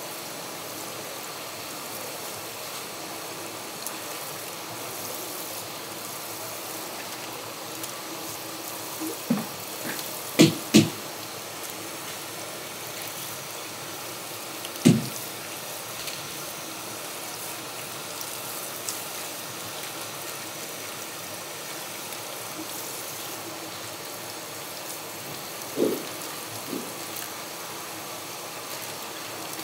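Steady rush of running water, like a tap at a sink, with a handful of sharp knocks scattered through it: a quick cluster about a third of the way in, one about halfway, and two close together near the end.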